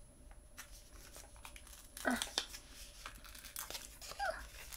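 Faint rustling and small clicks of things being handled, with a short rising vocal sound about two seconds in and a brief higher vocal sound near the end.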